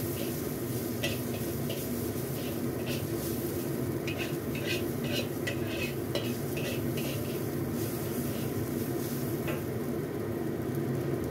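Metal spatula scraping and clinking irregularly against a black iron wok as chopped preserved mustard greens, garlic and ginger are stir-fried in oil, over a steady low background noise.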